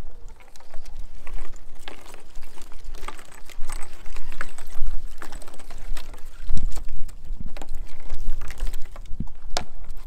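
Footsteps and two Jindo dogs' claws clicking and tapping irregularly on wooden boardwalk planks, over a low rumble, with one heavier thud a little past halfway.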